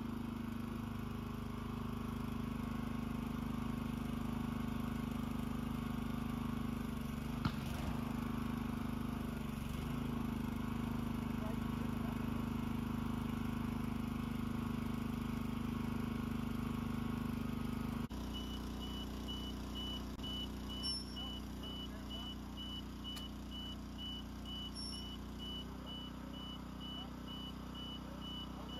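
Boom lift's power unit running with a steady hum. About two-thirds of the way through, the sound switches to a lower hum under a rapid, steady, high-pitched beeping from the lift's motion alarm.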